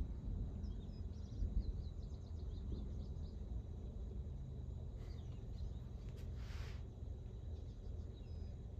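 Outdoor ambience: a low, steady rumbling noise, with small birds chirping now and then and a brief hiss about six and a half seconds in.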